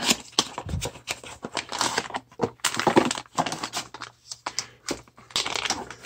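Small cardboard box being torn open by hand, then a plastic bag crinkling as the part inside is handled: irregular crackling and rustling.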